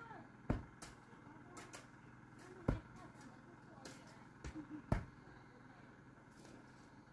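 A few sharp knocks, loudest about half a second, nearly three seconds and five seconds in, with a weaker pair just before the last, over a faint steady low hum.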